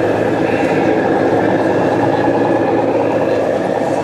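Radio-controlled Scania model truck's onboard sound unit playing a steady diesel engine running sound as the truck drives slowly.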